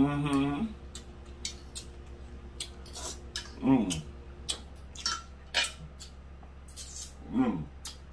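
Eating sounds: a metal fork clicking against a ceramic plate and mouth clicks from chewing, with three hummed "mmm" sounds of enjoyment, at the start, about halfway and near the end, the last two sliding down in pitch.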